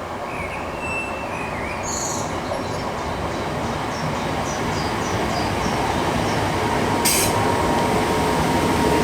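An electric multiple-unit train approaches along the line; its running noise grows steadily louder. Near the end a steady whine sets in as it nears the platform, with a few faint bird chirps early on.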